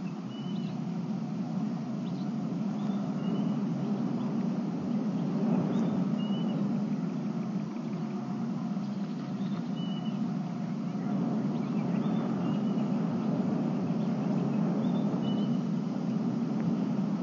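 Steady low outdoor background noise, with a bird's short high call repeating every couple of seconds.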